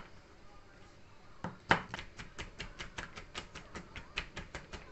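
Chef's knife chopping garlic on a plastic cutting board. After a quiet first second or so there is one sharp knock, then a fast run of light taps, about six a second.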